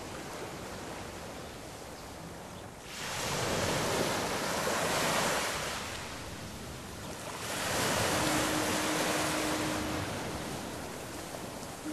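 Ocean surf: a hiss that swells and ebbs in slow surges about every four to five seconds. A steady low tone sounds for about two seconds near the end.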